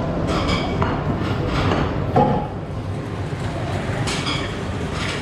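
Restaurant table noise: a steady low rumble with several sharp clinks of tableware.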